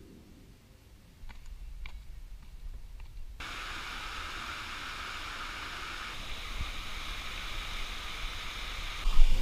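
Steady rushing of water in a shallow rocky stream, starting abruptly a few seconds in, over a low rumble on the action-camera microphone.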